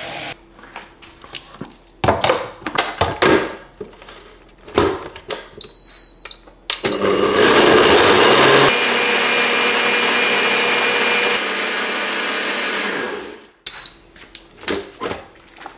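Single-serve personal blender blending a thick green smoothie: after clicks and knocks from the cup being handled, a short high beep, then the motor runs for about seven seconds, loudest for its first couple of seconds before settling to a steady whir, and stops, followed by another beep and more clicks.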